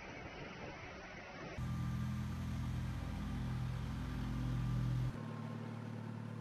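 Disinfectant spraying trucks running. An even rush of noise changes suddenly, about one and a half seconds in, to a louder steady engine hum, which switches about five seconds in to a different steady hum.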